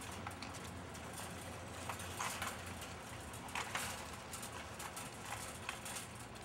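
Shopping cart pushed at a run across a concrete parking-garage floor: a rolling rattle with irregular knocks and clatters, a few louder ones in the middle.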